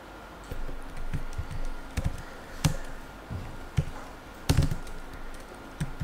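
Typing on a computer keyboard: irregular key clicks, a few struck harder than the rest.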